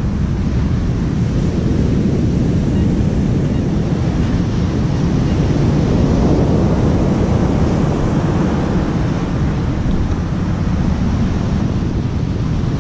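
Wind buffeting the microphone over the steady wash of big surf, a continuous low noise that swells a little midway.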